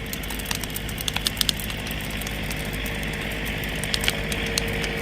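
Large bonfire of scrap wood burning hot, a steady rushing hiss with frequent sharp crackles and pops, over a steady low engine hum.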